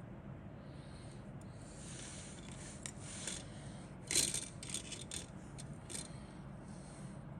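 The contents of a plastic model kit box being handled: rustling and scraping with a few light clicks and rattles, the loudest a little past the middle, over a steady low hum.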